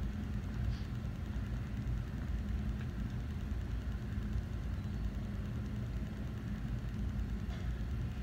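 Steady low mechanical hum of a running machine, with a couple of faint light clicks, one about a second in and one near the end.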